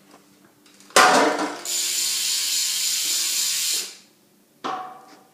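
Profile Mini BMX rear hub freewheeling as the back wheel is spun, its ratchet pawls clicking so fast they blend into a steady buzz. It starts abruptly about a second in, holds for about two seconds and dies away, with a shorter burst near the end.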